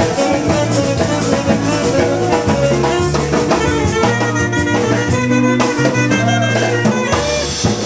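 Dance music with a drum kit keeping a steady beat under shifting melody notes.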